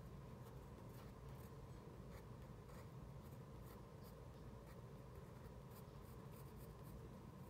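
Faint pencil scratching on paper in short, irregular strokes as a figure's feet are sketched, over a low steady room hum.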